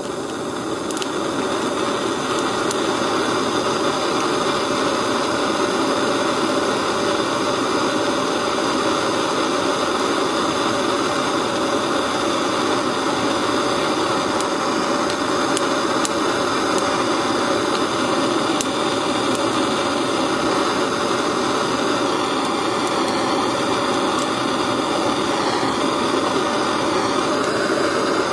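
Handheld gas blow torch burning steadily: a constant hiss of the flame, with a few faint ticks.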